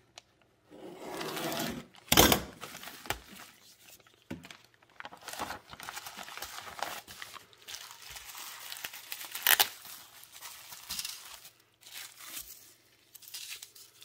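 A plastic bag being cut open and torn, then crinkling plastic and bubble wrap rustling as a circuit board is unwrapped. Two sharp, louder crackles come about two seconds in and again near ten seconds.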